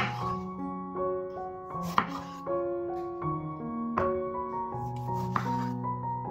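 Chef's knife slicing through a tomato and knocking on a bamboo cutting board, one sharp cut about every two seconds, four in all. Background music with held notes plays under it.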